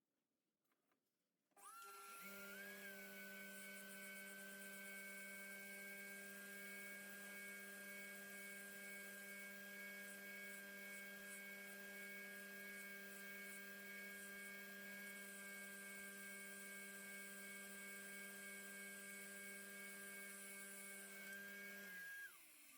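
Small electric grinder motor switched on, running with a steady whine for about twenty seconds, then switched off and winding down near the end.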